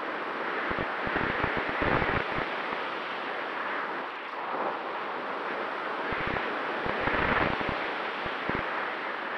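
Airflow rushing over the onboard camera microphone of a Mini Talon FPV plane in flight, a steady rush with gusty low buffeting that swells about a second in and again from about six seconds in. A faint steady hum from the plane's electric motor and propeller runs beneath it.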